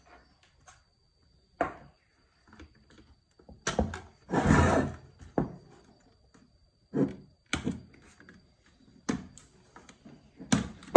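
Handling knocks and clatter from a plastic-cased variable-frequency drive being tipped over and moved on a workbench while its terminals are probed with a multimeter lead: about eight separate knocks, with one longer, louder scuffing noise about four and a half seconds in.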